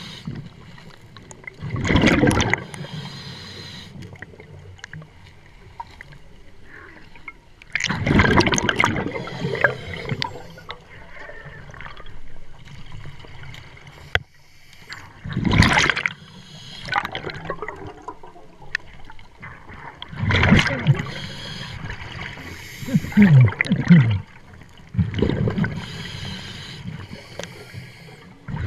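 Scuba diver breathing through a regulator underwater: loud bubbling bursts of exhaled air every few seconds, with a quieter hiss between them.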